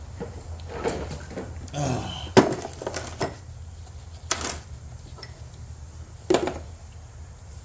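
Metal tools and parts clinking and knocking against each other in a handful of separate clanks, the sharpest about two and a half seconds in, over a low steady hum.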